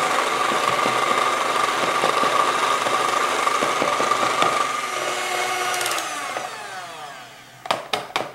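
Electric hand mixer beating a cream cheese mixture in a bowl with a steady whine. It is switched off about six seconds in and winds down, followed by a few sharp knocks near the end.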